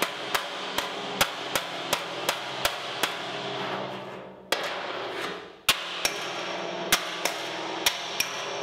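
Light hammer taps on the sheet-steel edge of a new VW Beetle floor pan, about two or three a second with a pause near the middle: the pan's dropped, bent corner is being tapped straight with a body hammer against a dolly held on the other side.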